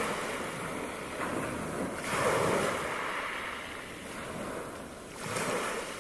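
Small sea waves breaking and washing up over a shingle beach, the surf swelling louder about two seconds in and again near the end.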